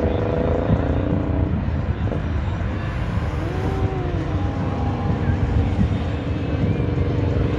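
Fireworks display on the Burj Khalifa heard from a distance: a continuous low rumble of many bursts running together.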